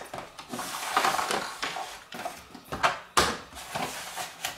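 A paper bag and plastic crafting tools being handled on a tabletop: paper rustling and a few light plastic knocks, the sharpest about three seconds in.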